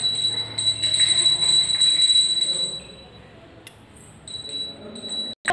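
Small puja hand bell rung continuously with a steady high ring; it stops about three seconds in and is rung again briefly near the end.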